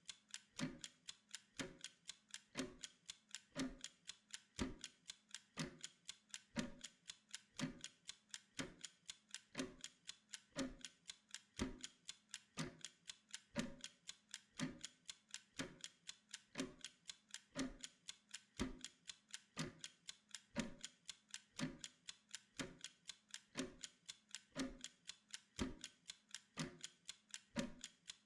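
Mechanical kitchen timer ticking steadily, several quick, even ticks a second, as it counts down a pomodoro work interval.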